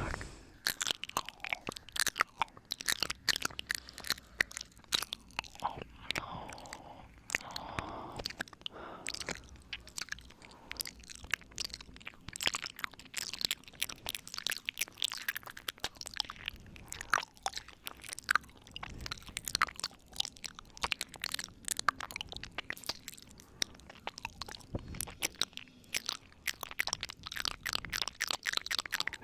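Close-miked ASMR 'ear eating' mouth sounds: a dense run of wet clicks and smacks, irregular and without pause.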